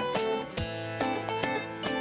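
Background music: an acoustic instrumental with plucked string notes over a steady beat.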